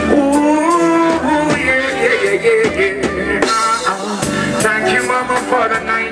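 Live reggae band playing, with a male singer carrying a drawn-out, gliding melody line into a microphone over the backing.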